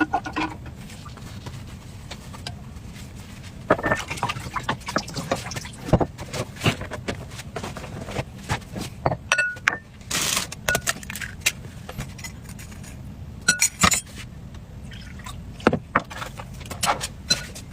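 Knife cutting and scoring into a watermelon: irregular sharp clicks and taps, with a short scraping cut about ten seconds in, over a steady low hum.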